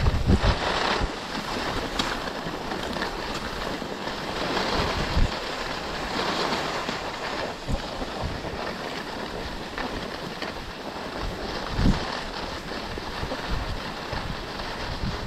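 Wind rushing over the microphone of a camera worn by a downhill skier, mixed with the steady hiss and scrape of skis gliding over groomed snow. A few low thumps break in, near the start, about five seconds in and near twelve seconds.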